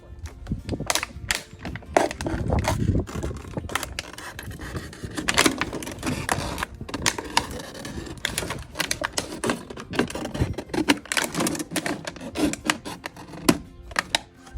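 Empty plastic jugs being handled and worked on, clattering and crinkling in a rapid, irregular series of clicks and knocks.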